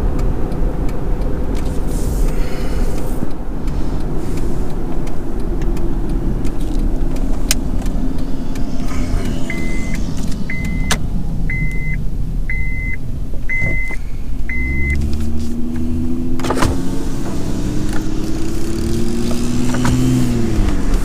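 Road and engine noise inside a moving car. Midway, six short beeps sound about a second apart. Near the end the engine note rises steadily as the car speeds up, then drops.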